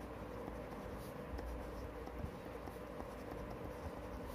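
Pen scratching on paper as words are written out by hand, faint, over a steady low hum.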